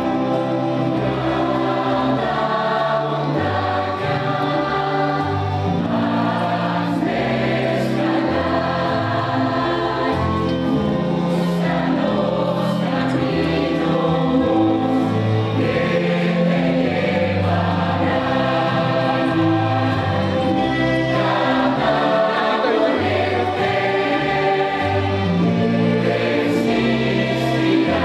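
Large mixed choir of men and women singing, holding full chords over a moving low bass part.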